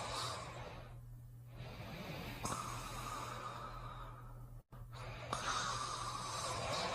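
Sleeping breaths snoring with a high whistle on each breath: one breath trailing off at the start, then two more slow whistling breaths. The sound cuts out for an instant between the second and third.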